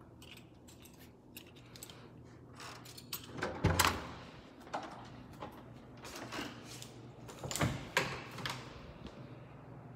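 Apartment entry door being unlocked and opened: a run of clicks and knocks from the lock, latch and door, loudest about midway and again near the end, over a low steady room hum.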